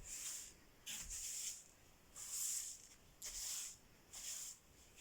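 Broom sweeping a floor in short, even strokes, about one a second, each a brief bristly swish.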